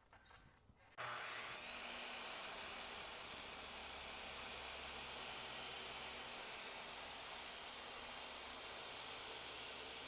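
Corded electric circular saw switched on about a second in, its whine rising to full speed and then running steadily while it cuts rigid foam insulation board.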